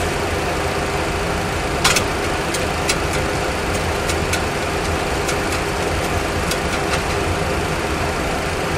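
Steady engine-like drone of a Boeing 737 Classic full flight simulator cockpit, with scattered light clicks as the heading selector knob on the mode control panel is turned by hand.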